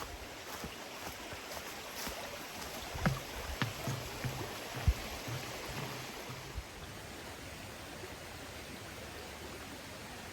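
A steady rushing noise, like running water, with a handful of sharp knocks in the first half.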